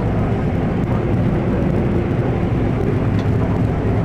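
Combine harvester running steadily while cutting oilseed rape, heard from inside the cab. The engine, threshing gear and header give a constant, even drone.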